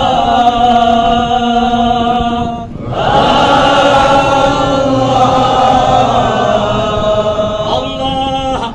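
A group of men chanting a devotional mawlid recitation together in unison, on long held notes, with a brief breath pause about two and a half seconds in.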